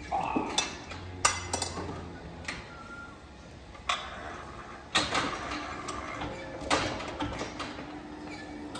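Irregular metallic clanks and knocks from a steel cattle hoof-trimming chute being handled, about a dozen sharp strikes spread unevenly, some close together in pairs.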